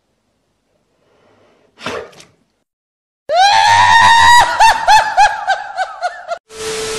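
A short breathy noise, then a loud, high-pitched scream with a wavering, trembling pitch lasting about three seconds. It is followed near the end by a brief burst of static hiss with a steady tone running through it, which cuts off abruptly.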